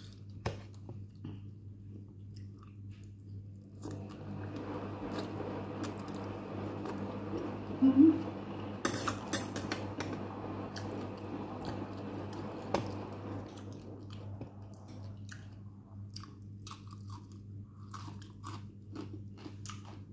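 A person chewing and crunching a mouthful of som tam, spicy papaya salad with thick noodles and fresh greens, with many small wet clicks of chewing over a steady low hum. The sound swells for several seconds in the middle, loudest about eight seconds in.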